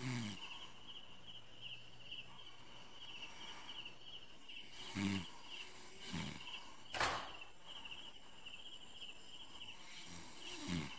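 Crickets chirping in a steady pulsing trill, with a few short low voice sounds and a single sharp knock about seven seconds in.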